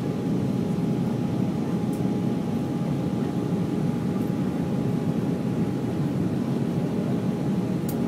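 Airliner cabin noise in flight during the descent: an even, unbroken rush of the engines and airflow, with a thin steady whine above it.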